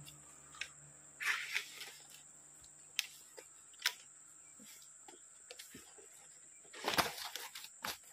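Scattered sharp clicks and knocks with a few short rustling bursts, the loudest about seven seconds in, over a steady high-pitched whine.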